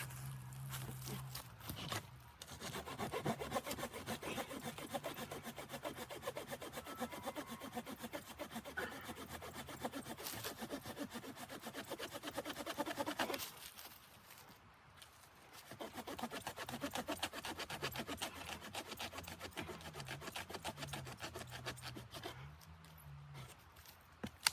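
Wood being sawn by hand in two spells of rapid, steady strokes, with a pause of about two seconds near the middle.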